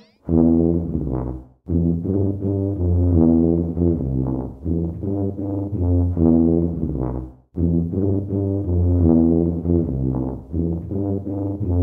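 Brass-band theme music playing a lively tune. It stops briefly twice, about one and a half seconds in and again about seven and a half seconds in.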